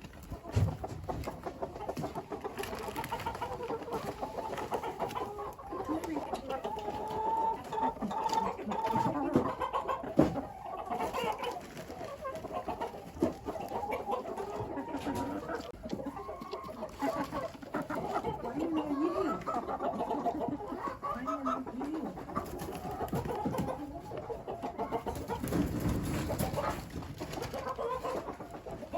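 Chickens clucking and calling continuously, a run of short, wavering calls.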